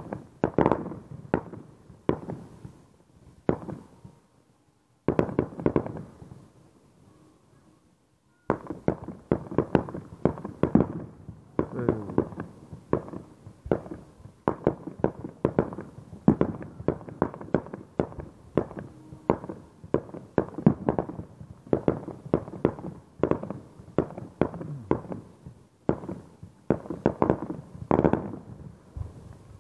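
Fireworks display: a dense, rapid run of sharp bangs and crackles from shells bursting in the sky, broken by two short lulls in the first eight seconds.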